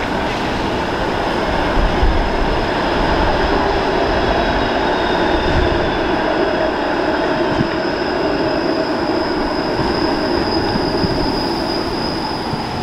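Bombardier Flexity Outlook streetcar rolling past close by on street track, a steady rumble of wheels and running gear with a thin high-pitched squeal held over it, strongest near the end.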